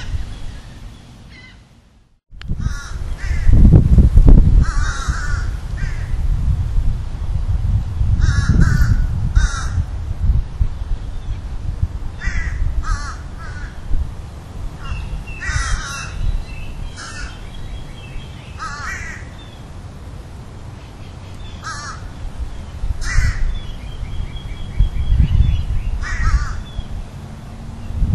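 Crows cawing in short harsh runs every few seconds, over a low steady rumble, after a brief drop to quiet about two seconds in.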